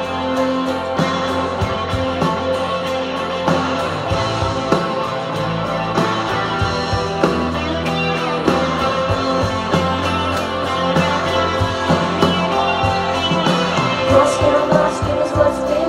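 Live indie-pop band playing through a PA: electric guitars over a steady drum beat, heard from within the audience.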